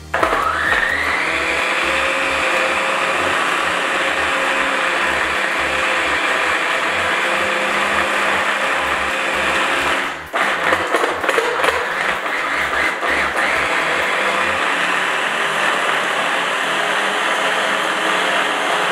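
Small electric food processor motor running, grinding a thick mixture of dates, nut butter and nut flours. It drops out briefly about ten seconds in, then restarts with a rougher, more uneven sound for a few seconds before running steady again.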